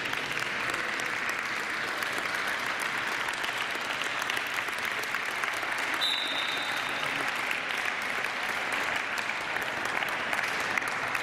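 Spectators clapping steadily, dense applause, with a brief high steady tone about six seconds in.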